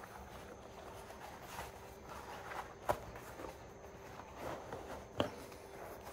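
Quiet handling of a leather boot at the workbench: soft rustling with two light knocks, one about three seconds in and another about five seconds in, over a faint steady hum.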